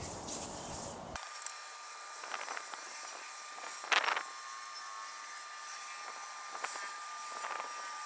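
Hamilton Beach microwave oven running with a cartridge inside, its sound sped up ten times: a steady high hum over hiss, starting about a second in, with a few short chirps, the loudest about four seconds in.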